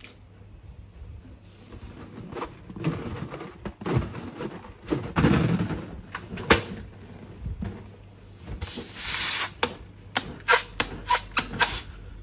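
Slime being squeezed and worked by hand, making irregular squelching and crackling noises, with a quick run of sharp clicks near the end.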